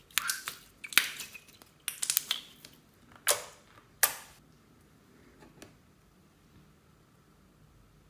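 Clear blue slime squeezed and pressed between the hands, giving a quick run of sharp wet pops and crackles as trapped air bursts, which stops about four seconds in.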